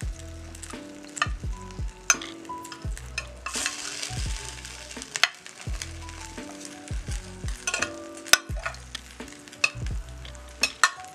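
Metal kitchen tongs clicking and scraping against a glass baking dish as baked chicken drumsticks are turned over, with the hot butter and juices in the dish sizzling. Background music with a steady beat plays underneath.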